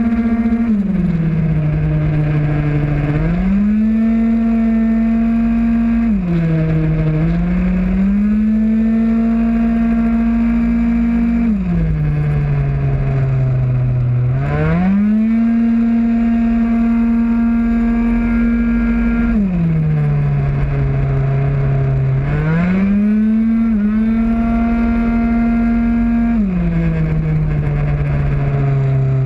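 Onboard sound of a Mach G Proto 50cc racing scooter's two-stroke engine at full throttle. It holds a steady high pitch along the straights, drops in pitch about five times as the rider eases off into corners, and climbs back each time on the throttle.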